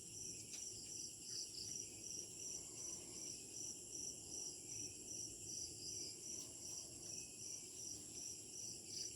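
Crickets chirping in a steady, even rhythm of about three pulses a second, over a constant high-pitched insect trill.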